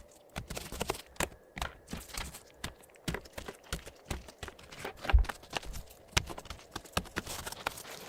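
Computer keyboard being handled for cleaning: irregular clicks and taps of plastic keys, with a heavier knock about five seconds in and short stretches of rubbing or brushing.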